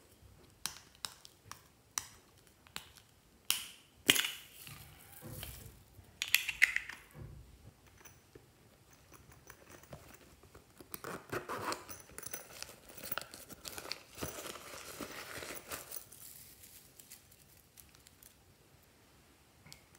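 Hands handling plastic containers and a soft toy over a glass dish: a run of sharp light clicks in the first few seconds, a few louder knocks and rustles, then a long stretch of crinkling and rustling about halfway through.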